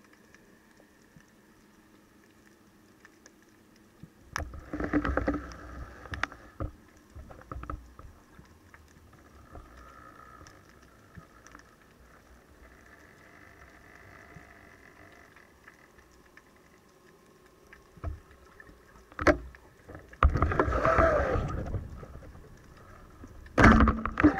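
Muffled underwater sound picked up by a camera on a speargun: water rushing past in bursts, with a few sharp clicks and knocks.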